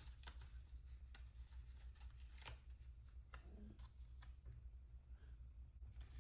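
Near silence with faint handling of paper stickers: a few scattered light ticks and rustles.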